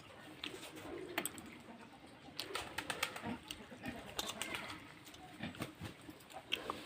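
Someone eating pakhala, rice soaked in water, by hand: scattered short wet clicks and smacks of mixing and chewing.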